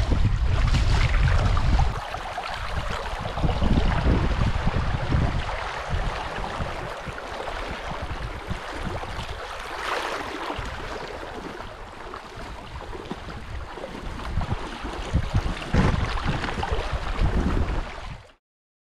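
Wind buffeting the microphone in strong gusts over choppy lake water; the sound cuts off abruptly near the end.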